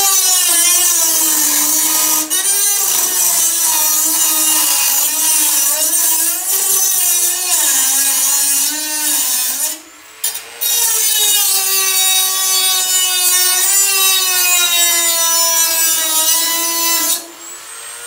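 Dremel rotary tool cutting a sheet-metal rain gutter to length: a high whine whose pitch sags and recovers as the tool is pushed into the metal. It stops briefly about ten seconds in, runs again, and stops shortly before the end.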